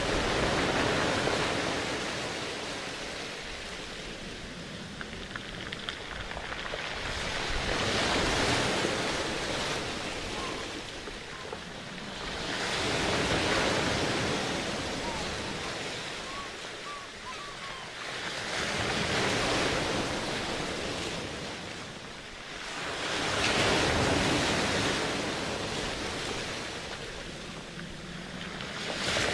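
Ocean waves washing in and drawing back, a steady rushing that swells and fades about every five to seven seconds.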